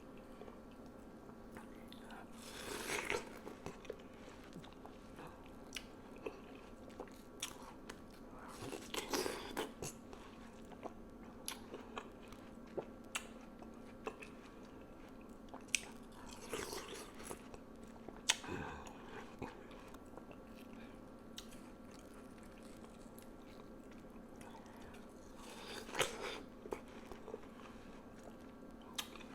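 Close-miked ASMR eating of juicy watermelon: four bites several seconds apart, with wet chewing and mouth clicks between them.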